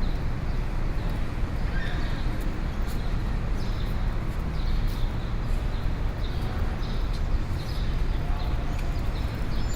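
City street ambience: a steady low rumble of traffic and street noise, with scattered light knocks and clicks over it.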